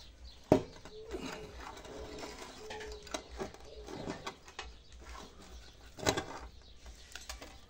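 Handling noise from a juniper bonsai and its pot being moved close to the microphone: rustling foliage and scattered knocks, the sharpest about half a second in and another about six seconds in.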